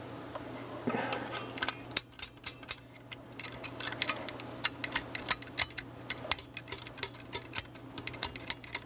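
Small metal hand tool scraping and clicking against the battery contacts inside a small plastic voice recorder, cleaning off corrosion. An irregular run of sharp ticks and short scrapes starts about a second in.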